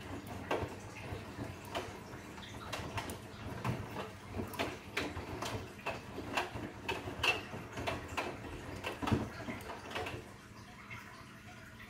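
Bosch Serie 8 front-loading washing machine washing: the drum turns and the wet laundry tumbles and splashes, with irregular knocks and clicks several times a second. The drum stops about ten seconds in.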